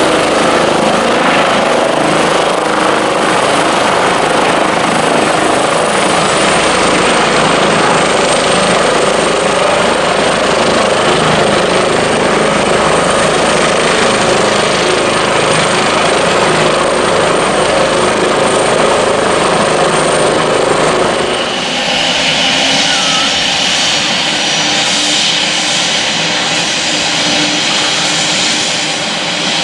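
Airbus H145 rescue helicopter landing and running on the pad: loud rotor and twin-turbine noise with a high steady whine that dips slightly in pitch a few seconds in. About twenty seconds in, the heavy rotor noise drops away and mainly the turbine whine is left, with the rotor still turning.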